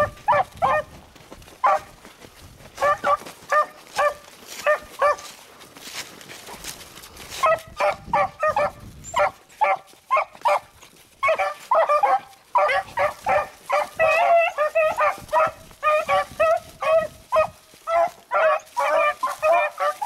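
A pack of beagles baying on a rabbit's scent trail, in short repeated cries. The cries are scattered at first, then come thick and overlapping over the second half.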